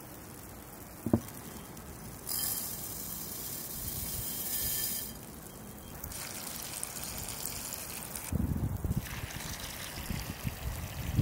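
A single sharp clink about a second in, then a few seconds of steady hiss. Near the end, water poured from a copper pitcher splashes onto dry lentils in a glass bowl.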